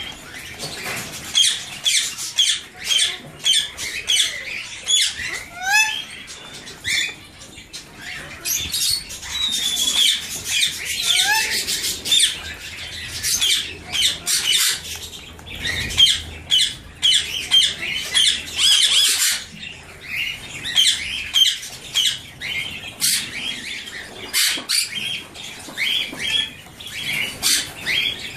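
Young Alexandrine parakeets calling nonstop in short, raspy squawks and chatters, several birds at once, with two rising whistles among them.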